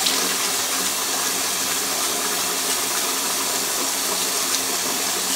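Bathroom sink tap running in a steady stream while water is splashed onto the face by hand.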